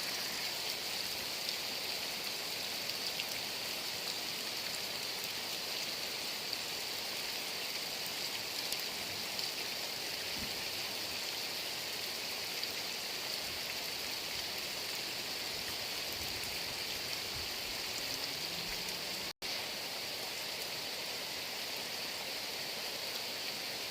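Heavy rain falling steadily, an even hiss with scattered faint drop ticks. The sound drops out for an instant about 19 seconds in.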